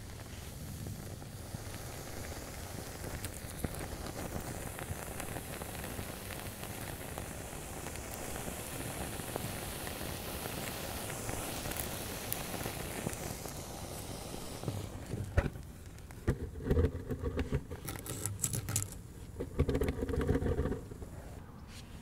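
A beeswax and cattail-fluff torch flaming in a small clay bowl, a steady crackling, hissing burn. From about fifteen seconds in, sharp clicks, knocks and short scraping and rustling sounds of handling take over.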